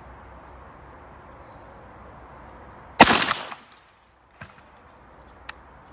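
A single shot from a Browning A5 semi-automatic 12-gauge shotgun firing a 3-inch Winchester Super X load, about three seconds in, its report fading over about half a second. A faint click follows a little over a second later.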